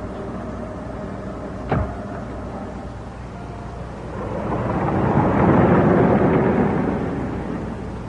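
A car door thuds shut once, about two seconds in, then the car pulls away, its noise swelling over a couple of seconds and fading again near the end.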